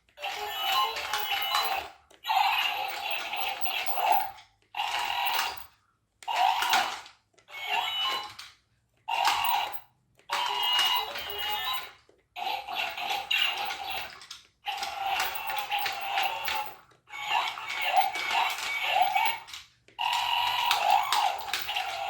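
Chad Valley toy robots playing their built-in electronic robot voice and sound effects through small tinny speakers, in about ten short bursts that each cut off sharply.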